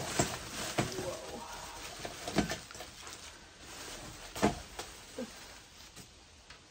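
Items being handled while boxes are gone through: rustling with several sharp knocks as things are picked up and set down, the loudest about two and a half and four and a half seconds in.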